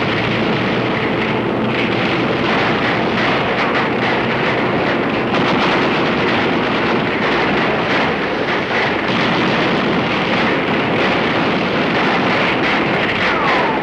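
A dense, steady roar of battlefield sound with no separate shots standing out, and a short falling whistle near the end.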